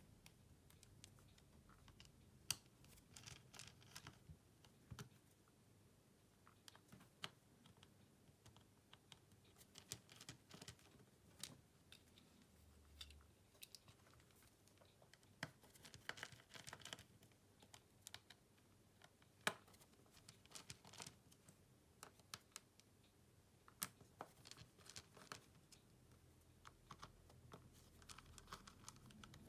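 Faint, irregular clicks and taps of small tools and phone parts being handled during a Samsung Galaxy S10+ screen replacement, with a few sharper clicks about two and a half seconds in and near twenty seconds.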